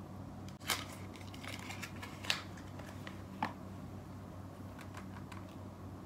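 A few light clicks and taps as a small glass essential-oil bottle is handled and opened, the sharpest about two seconds in, over a faint steady low hum.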